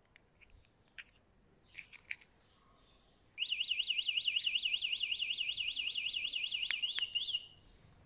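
Anti-theft alarm siren on a Kukirin G2 Max electric scooter, starting about three and a half seconds in: a loud, high-pitched electronic warble that sweeps up and down about six times a second for some four seconds, then cuts off suddenly.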